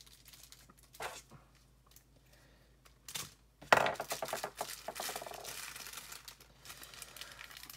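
Someone rummaging through plastic toy accessories and packaging: crinkling, scattered small clicks and a sharp knock a little past halfway.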